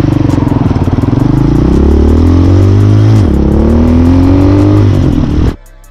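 Hawk 250 dirt bike's single-cylinder four-stroke engine accelerating hard, with the pitch climbing, dropping at an upshift about three seconds in, then climbing again in the next gear. The sound cuts off abruptly near the end.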